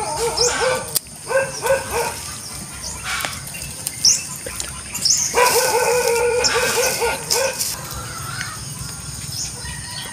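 A dog whining and howling in drawn-out, wavering cries: a broken run of cries in the first two seconds and one long cry about halfway through.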